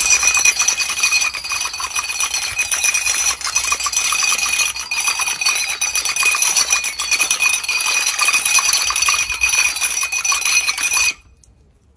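Hundreds of water-filled plastic cups toppling in a domino chain, a dense, continuous clicking and clattering with a bright jingling ring. It stops suddenly near the end, when the last cups at the centre fall.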